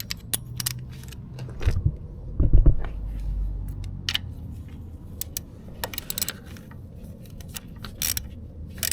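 Metal hand tools clinking and clicking at the motorcycle's sump plug as it is threaded in and tightened: scattered sharp clicks and knocks, a couple of louder ones near the start, over a low hum.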